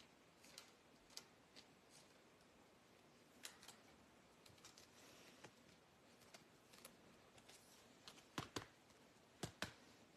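Faint, scattered clicks and taps of trading cards being handled and shuffled on a table, with a few louder, sharper taps near the end.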